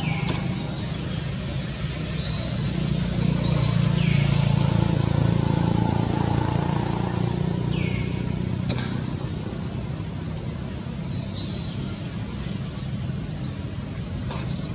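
Steady low rumble of a motor vehicle engine running nearby, swelling a few seconds in and easing off again. Short high downward chirps come through it several times.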